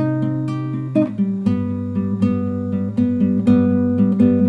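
Classical guitar played solo, picked chords ringing out with a change of chord about a second in.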